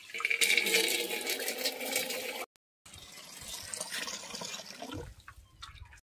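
Water pouring from a tap into a wide metal basin, splashing as the basin fills. The sound cuts out briefly about two and a half seconds in, comes back quieter, and fades just before the end.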